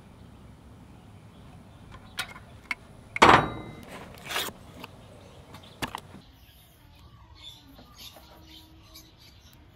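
Hands tearing open the cardboard box of an oil filter, with a loud rip about three seconds in and a shorter one about a second later, amid small clicks. After that, only faint handling and rustling as electrical tape is worked around the end of the filter.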